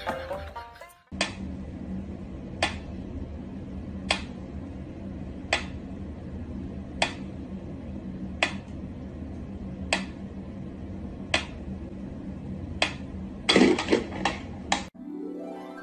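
Pyramid-style mechanical metronome ticking slowly, one sharp click about every second and a half. Near the end comes a quick flurry of louder knocks and scuffs.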